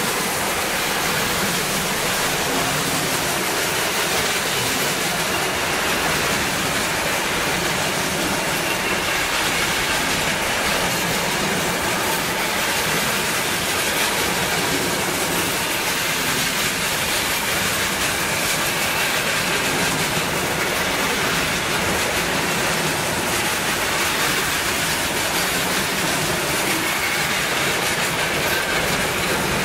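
Container freight train wagons rolling past close by: a steady, unbroken noise of steel wheels running on the rails.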